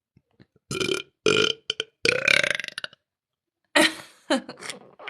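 A woman belching in a run of loud burps, several short ones and one long drawn-out burp about two seconds in.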